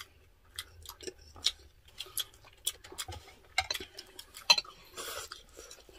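Metal spoon and fork tapping and scraping on ceramic plates during a meal: a string of small, irregular clicks, with a brief soft rustling sound about five seconds in.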